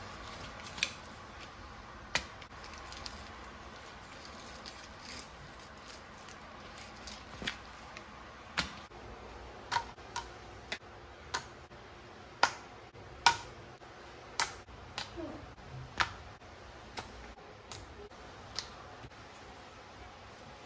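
Irregular sharp clicks and taps of a fillet knife against a plastic cutting board and granite countertop while fish is being filleted, sparse at first and coming more often in the second half.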